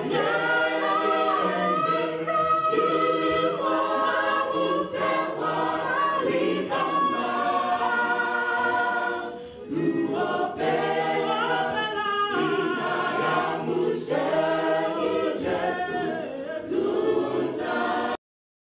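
A choir singing, several voices together, stopping abruptly shortly before the end.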